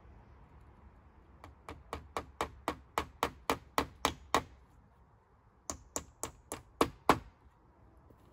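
Hammer driving nails into a wooden door frame: two runs of quick strikes about four a second, a dozen blows, a short pause, then half a dozen more, with one of the last blows the loudest.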